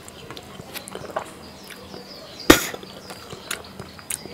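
Eating by hand: small wet clicks and smacks of chewing and of fingers mixing rice and fish curry on a metal plate, with one loud sharp crack about two and a half seconds in.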